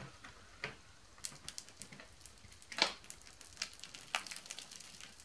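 Slime on a wire cooling-rack grid giving off scattered sticky pops and crackles as it is pressed into the grid and pulls away from the wires. The loudest crackle comes a little under three seconds in.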